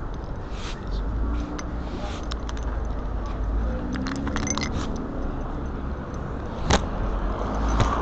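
Street traffic with a low rumble and a passing vehicle's engine hum in the middle, under the rubbing and small clicks of clothing and hands against a body-worn camera, with one sharp click near the end.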